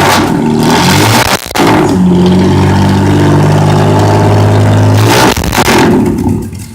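Jeep Gladiator's Tornado inline-six with a dual exhaust and a 7.20 mm cam, being revved. The revs climb, break off briefly about a second and a half in, then rise again and hold high and steady for about three seconds before dropping away near the end.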